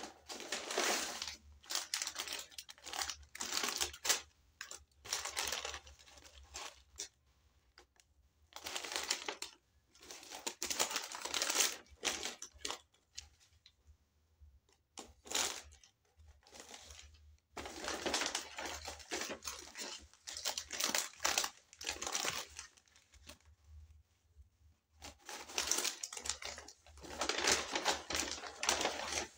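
Paper takeaway bag rustling and crinkling in bursts of a few seconds at a time as it is opened and rummaged through, with short pauses between.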